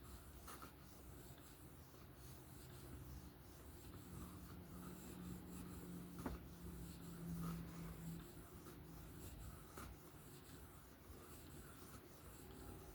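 Faint, light scraping of a knife edge being drawn across a sharpening surface with little pressure: deburring passes to knock off the leftover burr, with a few small ticks.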